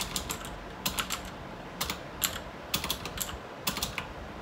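Computer keyboard keys clicking in short, irregular bursts of a few keystrokes with pauses between, as code is typed slowly.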